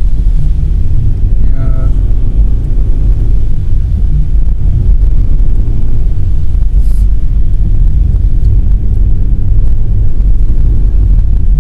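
Car driving on the road, heard from inside the cabin: a loud, steady low rumble of engine and road noise.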